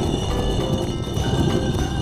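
Background music with a quick clopping rhythm, like running hoofbeats.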